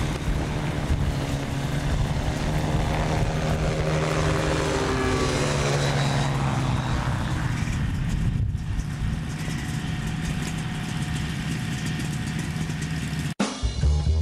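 Kolb FireFly ultralight aircraft in flight, its engine and pusher propeller droning steadily with the pitch bending as it flies past. Near the end the sound cuts off abruptly and music begins.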